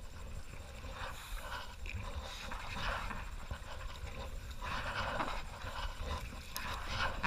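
Sounds of a kayaker paddling a sit-on-top kayak: soft, hissy strokes and breaths every second or so, over a steady low rumble.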